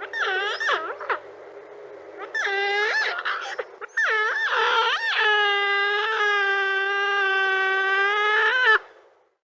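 Giant otter calling: several short calls that bend up and down in pitch, then one long, steady call from about five seconds in that breaks off shortly before the end.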